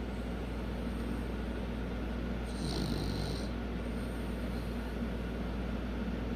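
Dog snoring in its sleep: slow breaths, with one clear snoring breath about halfway through, over a steady low hum.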